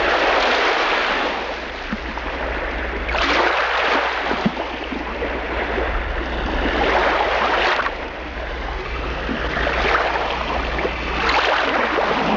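Gulf surf breaking in repeated swells, one wave about every three to four seconds, over a steady low rumble.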